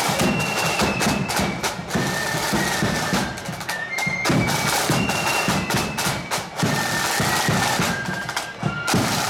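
Marching flute band playing a tune: a high melody of held notes over busy side-drum strokes and a bass drum.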